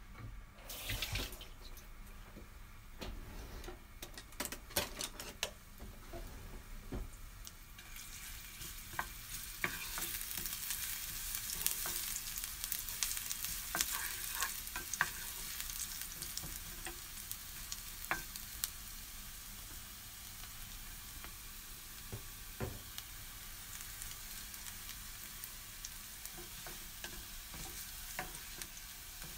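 Minced garlic sizzling in hot oil in a nonstick pan, with a wooden spatula scraping and tapping against the pan as it is stirred. The sizzle builds over the first several seconds as the oil heats, then eases a little.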